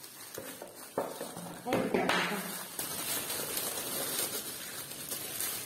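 Clear plastic wrapping crinkling as it is handled and pulled around a boxed picture frame, with a sharp click about a second in.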